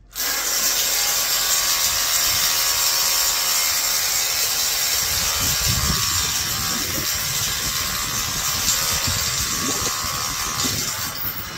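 Hammer drill boring an anchor hole into concrete for a railing post. It starts suddenly and runs steadily for about eleven seconds, then stops near the end.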